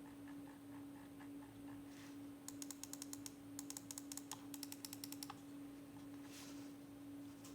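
Logitech Pro X Superlight 2 mouse buttons clicked rapidly, a quick run of about two dozen sharp clicks from about two and a half seconds in for nearly three seconds. Fainter soft ticks come before the run, and a steady low hum lies under it all.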